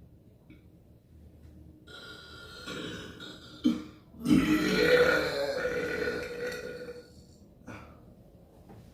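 A person burping: a short burp about three and a half seconds in, then one long, loud, drawn-out burp lasting about three seconds.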